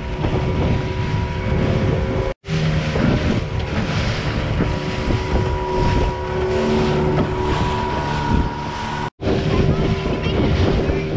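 Small motorboat's engine running steadily at speed, with wind buffeting the microphone and water splashing along the hull. The sound cuts out abruptly twice, about two and nine seconds in.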